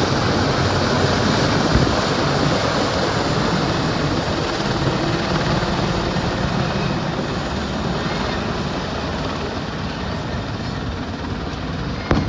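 Military aircraft flying over, a steady loud rushing noise that slowly fades away, with one short sharp knock near the end.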